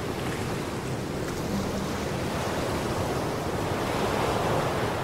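A steady rushing noise, like surf, that swells in and holds at an even level, easing off near the end, with a faint low hum briefly about a second and a half in.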